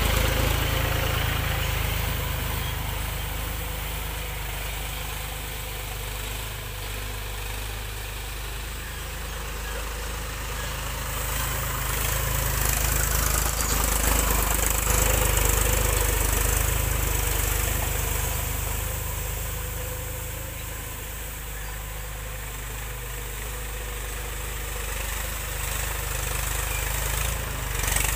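Mahindra 275 DI tractor's three-cylinder diesel engine running as the tractor drives over a heap of paddy straw to thresh it. It swells and fades in turns, loudest at the start, around the middle and again at the end.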